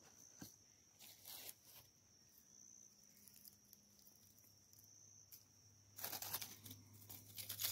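Dry fallen leaves crackling and rustling as pieces of a broken crossbow bolt are handled and picked up off the leaf litter. There are a few brief crackles early on and a denser run of them in the last second and a half, over a faint steady high-pitched drone.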